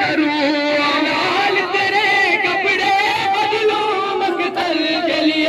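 A male reciter singing an Urdu noha, a long wavering melodic line without clear words, with a few short sharp smacks about four seconds in.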